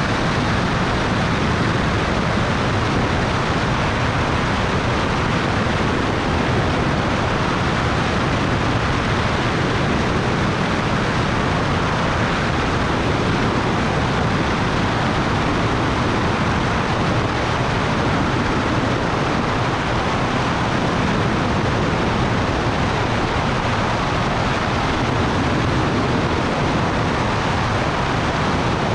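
Steady drone of a Cessna Turbo Centurion's turbocharged six-cylinder engine and propeller in flight, blended with rushing wind noise at an even level.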